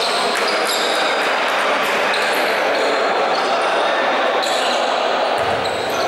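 Basketball being bounced on a hardwood court in a reverberant gym, over a steady hall noise.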